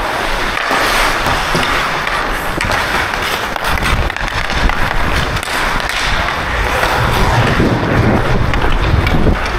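Hockey skate blades scraping and carving on rink ice, with frequent sharp taps of the stick blade on the puck and ice as the puck is carried. A heavier low rumble joins from about halfway through.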